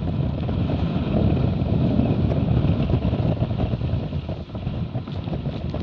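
Wind buffeting the microphone over the rush of water and spray along a Dart 16 catamaran's hull as it sails at speed. It is heaviest between one and three seconds in.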